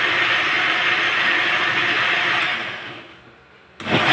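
Countertop blender running on a tomato, onion and red capsicum paste, then switched off about two and a half seconds in so the motor winds down, and switched back on with a quick spin-up just before the end. The stop-and-start is pulsing to spare the blender's motor.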